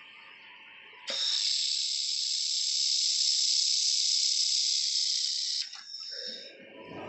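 A 2000 W handheld fiber laser welder firing, giving a steady high hiss that starts suddenly about a second in and cuts off after about four and a half seconds.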